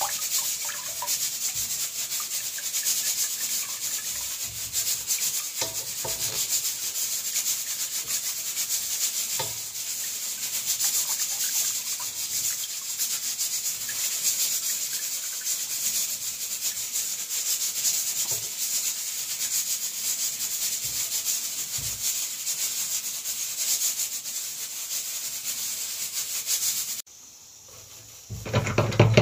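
Hands wringing grated coconut in a cloth strainer to press out coconut milk, a steady scratchy rubbing of wet cloth and coconut shreds. Near the end it cuts off abruptly and a brief rush of tap water follows.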